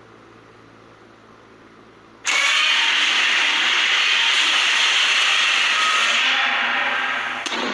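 A monster sound effect: after a faint hum, a sudden loud, harsh, noisy blast starts about two seconds in, holds steady for about four seconds, then fades, with a sharp click near the end.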